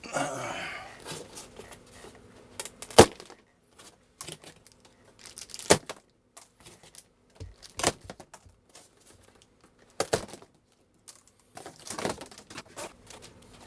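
Large cardboard box being opened by hand: tearing and crinkling of tape and packing, with several sharp clicks and knocks spaced a couple of seconds apart.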